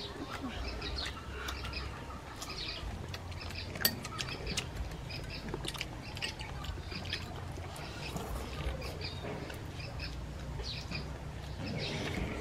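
Small birds chirping again and again in the background, with a few sharp clicks of chopsticks against a ceramic bowl; the loudest click comes about four seconds in.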